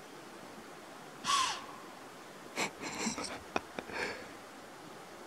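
Deer doe giving a loud, breathy alarm snort (a blow) about a second in, a warning sign that she has sensed danger. A few softer clicks and rustles follow.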